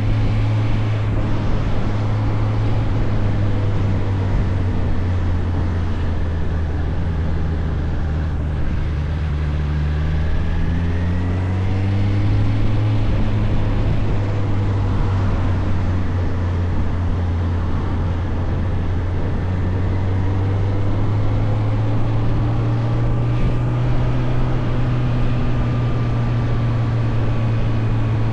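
Suzuki GSF 600 Bandit's inline-four engine running under way, with wind and road noise. Its pitch rises steadily about a third of the way in and climbs gently again later as the bike picks up speed.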